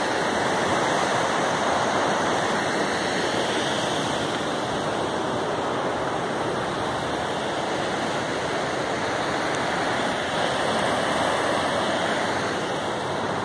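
Fast-flowing river rushing steadily over rocks and through small rapids.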